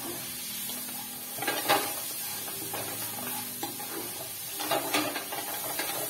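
Garlic, onions and tomatoes sizzling in oil in a nonstick wok while a spatula stirs them, with a few louder scrapes of the spatula against the pan, the strongest about a second and a half in.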